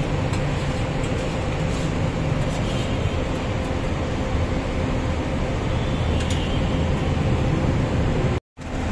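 Steady rushing background noise with a low hum and a faint steady tone, like ventilation or machinery room noise. It cuts out completely for a split second near the end.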